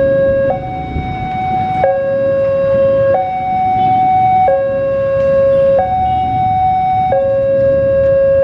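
Railway level-crossing warning alarm sounding a steady two-tone hi-lo signal, a higher and a lower tone taking turns about every 1.3 seconds, warning that a train is approaching. A low rumble runs underneath.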